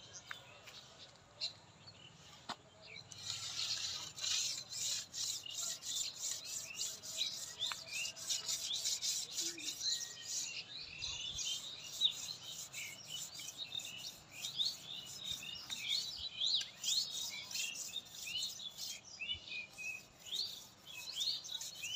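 A hand knife shaving the bark of a date palm trunk to open the tapping face for sap: rapid, repeated rasping scrapes that start about three seconds in. Small birds chirp throughout, more often in the second half.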